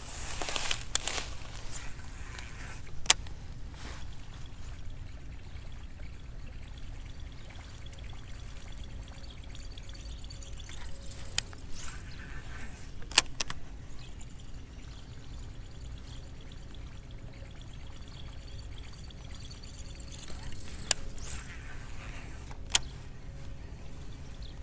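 Low rumble of wind on the microphone, with a few single sharp clicks from a baitcasting reel being handled.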